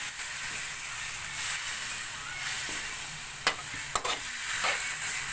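Marinated beef slices and garlic sizzling in a wok as a metal spatula stirs them, with three sharp clinks of the spatula against the wok in the second half.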